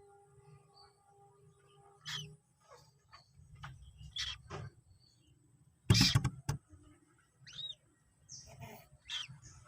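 Common moorhens giving short, scattered calls and chirps, with one much louder brief sound about six seconds in. A faint steady hum runs under the first two seconds.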